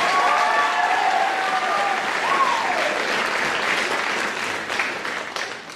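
Audience applause in a theater, with a few cheering voices over it in the first couple of seconds. It dies away near the end.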